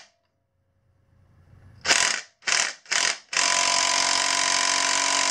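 Cordless impact gun hammering on a tight engine bolt that does not break loose: three short bursts about two seconds in, then a steady run to the end.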